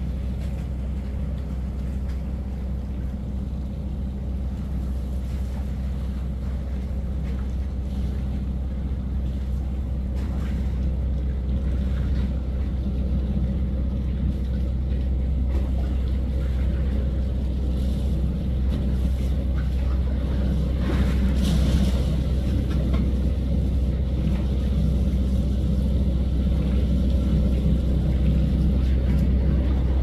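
Boat engine running steadily with a low drone, which slowly grows louder, over faint wash of water and wind.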